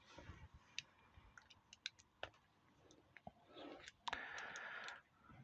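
Faint scattered clicks of a plastic fuel hose and small tools being handled while the hose is cut, with a short scraping rustle about four seconds in that lasts about a second.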